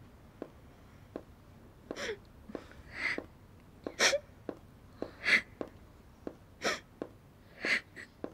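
Heeled shoes stepping on a wooden floor in steady, sharp clicks, and from about two seconds in a woman sobbing in short, breathy gasps roughly once a second.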